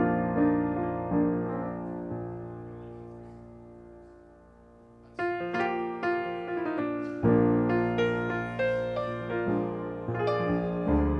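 Piano played solo: chords ringing and dying away to a near pause about four seconds in, then new chords struck about a second later and the playing carrying on.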